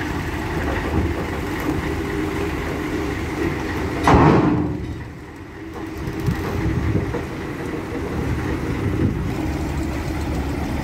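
Heavy truck diesel engine running steadily, with a loud burst of noise about four seconds in.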